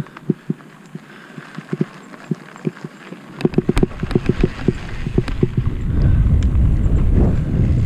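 Mountain bike rolling down a dirt singletrack, its frame and parts rattling with irregular clicks over the bumps. About three and a half seconds in, the rattling thickens and a low rumble of tyre noise and wind on the microphone builds as the bike picks up speed.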